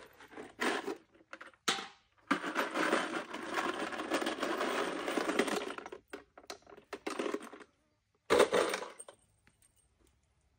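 Metal screws rattling and jingling in a plastic bag as they are rummaged through. The rattle is steady for a few seconds in the middle, with shorter rustles and clinks before and after it.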